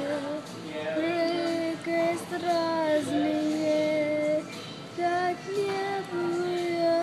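A boy singing a slow song with no words picked out, holding long steady notes in phrases with short pauses between them.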